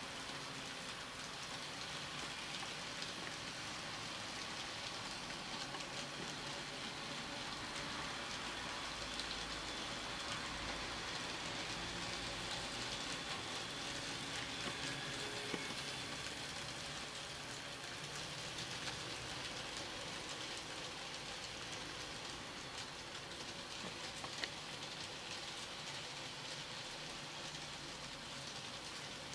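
N gauge model freight train running steadily on curved TOMIX track: an even rolling hiss of the small wheels on the rails, with an occasional faint click.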